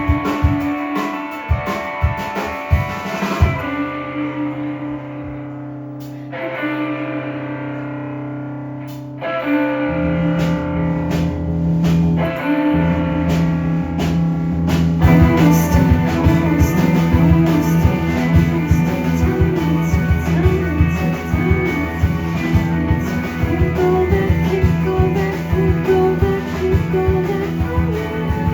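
Live rock band playing: electric guitar chords over drums. The drums drop out about four seconds in, leaving sustained ringing chords. The full band with bass comes crashing back in about ten seconds in and swells louder a few seconds later.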